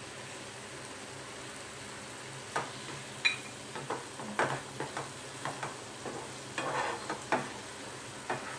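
Wooden spatula stirring and scraping a thick onion masala in a stainless steel frying pan, over a steady low sizzle of the masala frying in oil with its water cooked off. The scrapes and knocks start about two and a half seconds in and come irregularly after that.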